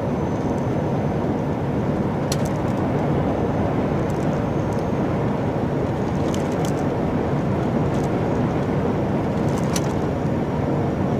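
Steady engine and road noise inside the cab of a lorry (HGV) driving at speed, with a few faint clicks or rattles now and then.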